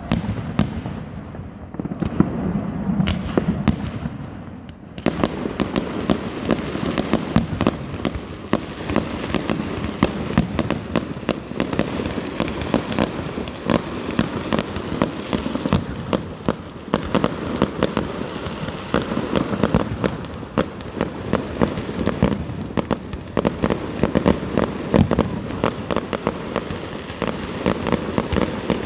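Fireworks going off: scattered bangs and crackles for the first few seconds, then a dense, continuous barrage of rapid cracks and pops.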